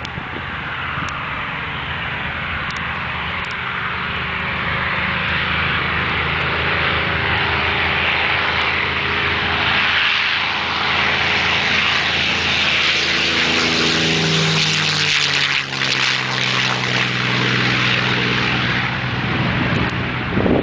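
A P-51 Mustang's Merlin V-12 engine running at take-off power during the take-off roll, a deep engine drone with propeller roar that grows louder as the plane approaches. The engine's pitch dips slightly about two-thirds of the way through, and the sound is loudest near the end as the plane lifts off.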